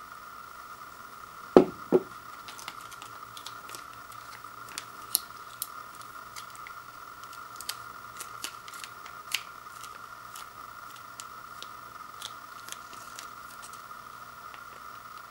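Plastic sauce packet crinkling and crackling in the hands as it is squeezed and folded to press out the last of the sauce, in many small scattered clicks. Two dull knocks, the loudest sounds, come about a second and a half in, a split second apart.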